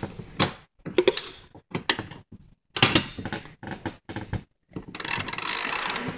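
Socket ratchet clicking in short, uneven strokes as it turns a stiff distorted-thread (centerlock) locknut onto a steel bracket bolt, with metal clinks of the wrenches. The nut cuts its own threads as it tightens and resists turning. Near the end comes a longer run of fast ratchet clicking.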